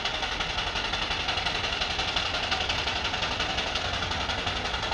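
A steam traction engine working out of sight, giving a fast, even mechanical beat over a steady hiss.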